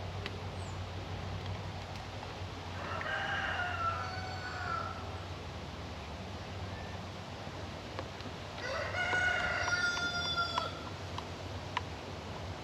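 A rooster crowing twice, once about three seconds in and again, louder, about nine seconds in, each crow lasting about two seconds.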